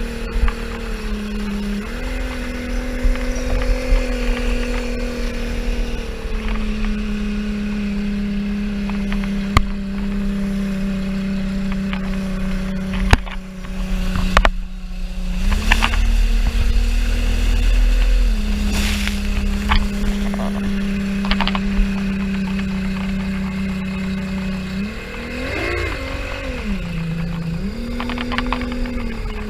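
Speedboat engine running at speed, its pitch stepping up and down several times as the throttle changes, with a brief drop about halfway through and a wavering rev near the end, over low wind rumble on the microphone.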